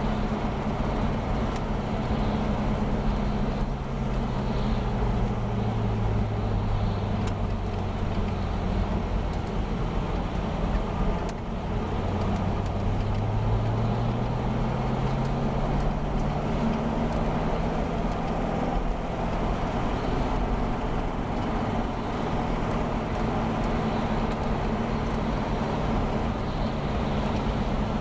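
Car engine and road noise heard from inside the cabin on a wet road. The engine note falls a few seconds in, then climbs again past the middle.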